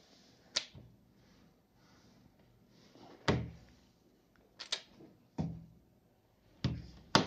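An RC glider's metal retract landing gear being worked by hand: sharp clicks and clacks of the metal linkage as the wheel is swung up into the folded position and down again. About six separate clicks a second or more apart, the loudest one near the end.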